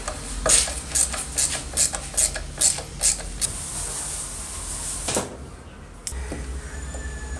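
A run of sharp metallic clicks from a hand ratchet driver with a socket backing a bolt out of a steel saw base, about three clicks a second, then a single metal clink about five seconds in.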